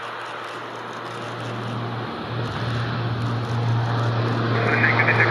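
Air Force WC-130 Hercules' four turboprop engines on departure, a steady low propeller drone with rushing noise, growing louder as the aircraft approaches, with a higher whine joining near the end.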